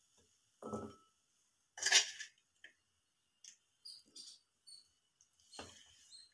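A serving spoon knocking and clinking against a glass bowl as cooked broad bean curry is spooned into it. A soft knock comes just under a second in, a sharp clink about two seconds in is the loudest, and smaller scrapes and clicks follow.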